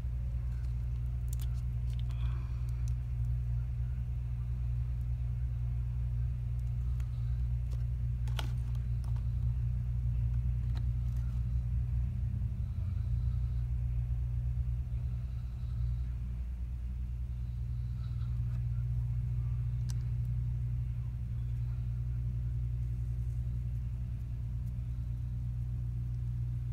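Steady low rumble of machinery from work going on outside, with a couple of faint clicks.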